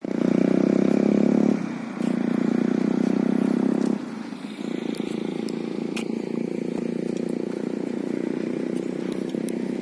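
A motor vehicle engine running, most likely a motorcycle's. It is louder for the first four seconds, with a short dip at about a second and a half, then drops after a brief break to a steadier, quieter run.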